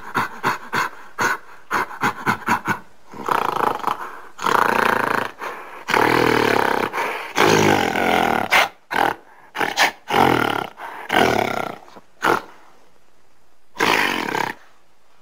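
Gorilla vocalizations from a sound-effects set: a quick run of short, pitched calls, about four a second, then several long, loud roars from about three seconds in. More short calls follow, with one more roar near the end.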